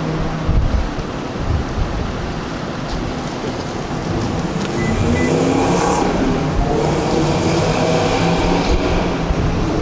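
Wind rumbling on the microphone over street traffic, with a vehicle engine coming through more strongly from about halfway in.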